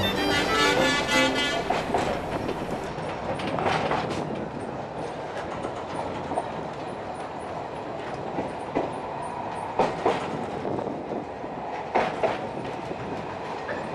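Fiddle music ends about three seconds in, leaving the steady rumble of a 750 mm narrow-gauge train in motion, with wheels clacking over rail joints now and then and two quick clacks near the end.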